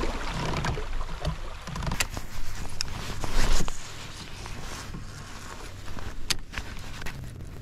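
Water lapping against a kayak hull, with scattered clicks and knocks from a baitcasting rod and reel being handled. The loudest knock comes about three and a half seconds in.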